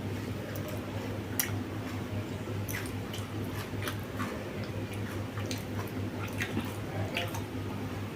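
Person chewing and eating crisp pani puri, with scattered small crunches and mouth clicks, over a steady low hum.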